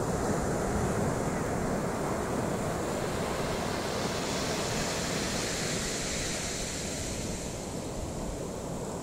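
Small sea waves breaking and washing up over a shell-covered sand beach, a steady surf hiss that swells about halfway through as a wave runs up the shore.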